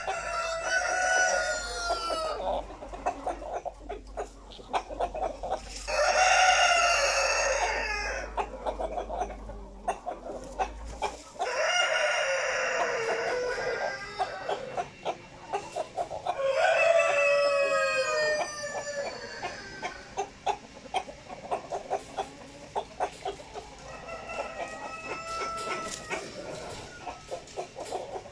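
Roosters crowing: five long crows a few seconds apart, some louder and some fainter, with short clucks and clicks in between.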